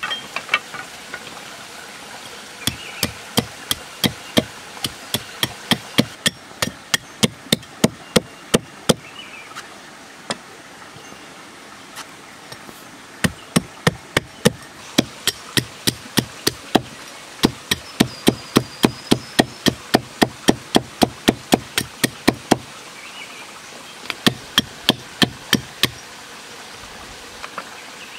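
Small hatchet chopping the ends of green wooden sticks to points, in runs of sharp strikes about two a second with short breaks between them.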